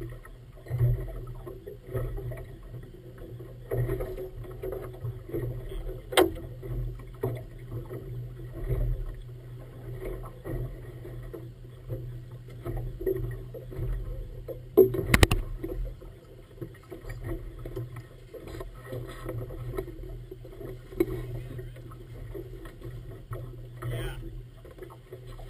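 115 hp outboard motor idling steadily, with water lapping at the hull and two sharp knocks, the second the louder.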